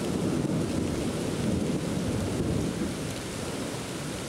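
Thunder rumbling low and continuously over the hiss of steady rain, easing a little in the second half.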